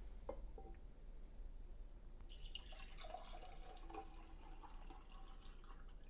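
Water poured from a glass pitcher into a drinking glass, a faint thin stream from about two seconds in, after a couple of light knocks near the start.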